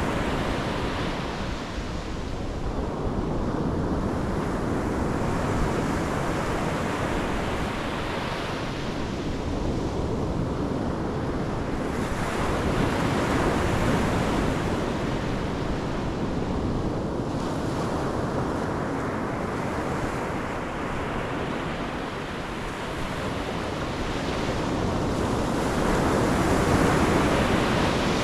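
Pacific Ocean surf breaking on the shore: a steady wash of waves that swells and falls back every few seconds, with the biggest surge near the end.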